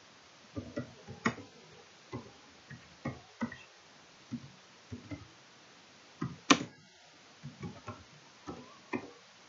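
Computer keyboard typing: irregular key clicks with short pauses, one stroke about two-thirds of the way in louder than the rest.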